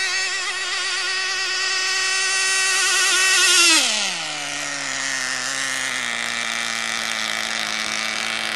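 Small .12-size two-stroke glow engine of an RC rigger hydroplane running at full throttle, a high, slightly wavering whine that grows louder. About four seconds in the pitch drops steeply as the engine is throttled back, and it runs on at a much lower, steady pitch while the boat slows.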